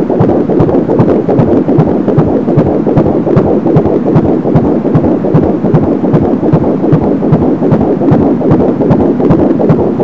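Fetal heartbeat at 13 weeks and 2 days of pregnancy, picked up by a Doppler ultrasound probe and played through its speaker: a fast, even pulsing over a steady noisy background.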